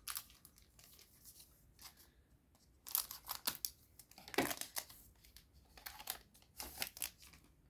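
Foil booster pack wrapper crinkling and tearing as it is opened, in several short rustling bursts.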